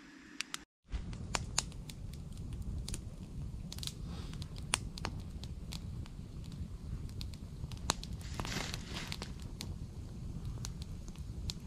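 Wood campfire burning, starting about a second in: irregular sharp crackles and pops over a low steady rumble, with a brief hiss about eight seconds in.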